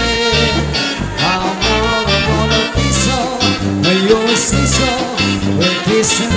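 Live band playing an instrumental cha-cha passage: a trumpet carries the melody over electric bass, acoustic guitar, keyboard and hand drum.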